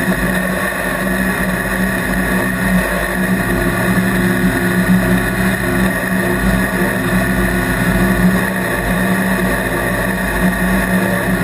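Mid-engine race truck's engine running hard at a steady, high speed, heard from inside the cab over a constant rush of wind and road noise.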